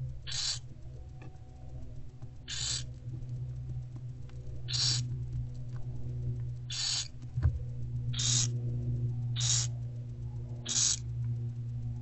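Barn owlets giving their hissing food-begging 'snore' calls, seven short hisses one to two seconds apart, over a steady low electrical hum.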